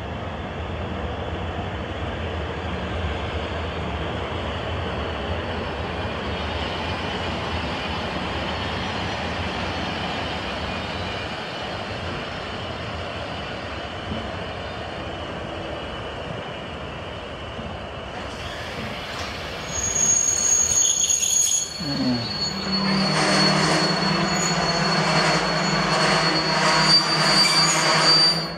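Empty container flat wagons of a freight train rolling past on the rails with a steady rumble. About two-thirds of the way in, the wheels and brakes start to squeal with high, ringing tones, joined a couple of seconds later by a low groan, as the train brakes toward a stop.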